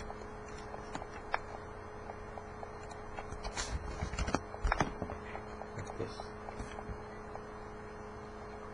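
Computer keyboard keystrokes and mouse clicks, a handful of sharp taps bunched in the middle, over a steady low electrical hum.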